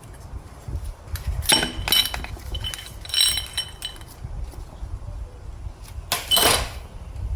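Metal automatic-transmission parts clinking and ringing as they are handled and set down on the bench, in three short bouts.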